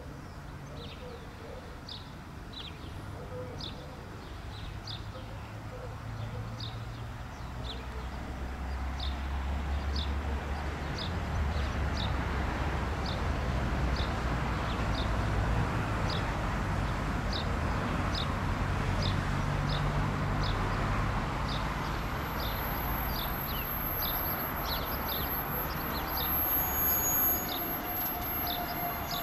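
Class 150 diesel multiple unit 150001 approaching and running into the platform, its underfloor diesel engines rumbling louder as it nears, with a thin high squeal over the last few seconds as it slows. A small bird chirps over it, a short call repeated about once a second.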